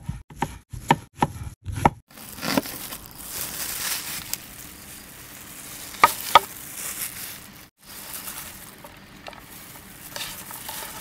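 Chef's knife slicing an onion on a wooden cutting board in quick, even strokes, about three to four a second, for the first two seconds. After that come softer handling and rustling sounds, with two sharp knocks about six seconds in.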